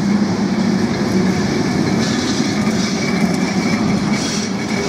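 Lisbon heritage tram rolling past close by on street rails, with a steady rumble of wheels and motor. A faint high wheel squeal joins about two seconds in.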